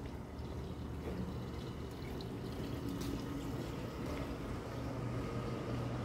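Steady low rumble and hiss of outdoor street background noise, with a few faint clicks.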